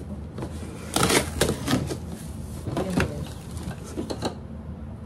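Handling noise from white plastic hydroponic pipe sections and fittings being pulled out of a cardboard box: a run of scrapes, rustles and light knocks, busiest about a second in, around three seconds and just after four seconds.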